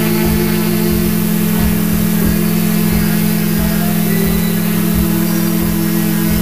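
Multirotor drone's electric motors and propellers running steadily, a constant hum with a hiss above it, picked up by the drone's own onboard camera.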